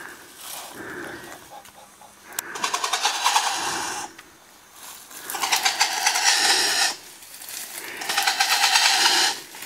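Kagu giving three harsh, rasping hisses, each about a second and a half long with a fast rattling pulse, a defensive display around the nest.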